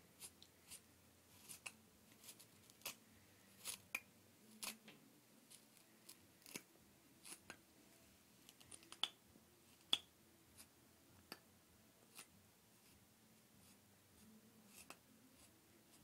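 Faint, short scratches and clicks at irregular intervals, roughly one or two a second, from a plush toy's curly synthetic fur being worked through while it is groomed. A couple of sharper clicks stand out about nine and ten seconds in.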